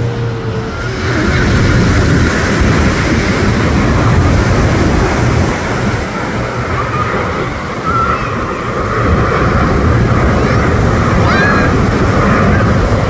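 Surf breaking on a sandy beach, with wind buffeting the microphone in a steady, loud rush.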